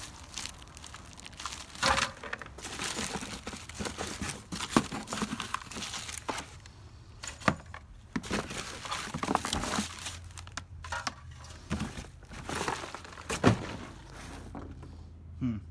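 Rummaging through dumpster trash: plastic and paper crinkling and rustling, with sharp knocks and clatters of objects being moved. A low steady hum sets in near the end.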